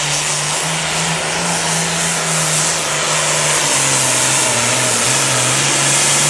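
Turbocharged diesel Super Farm pulling tractor running flat out under load down the track, a loud steady drone with a slight drop in pitch about four seconds in.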